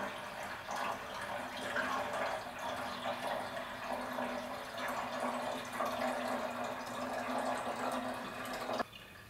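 Vinegar pouring from a plastic jug into a Yamaha RS 100 motorcycle fuel tank through the filler, filling the tank for a rust-removal soak. The pouring runs steadily, then stops suddenly near the end.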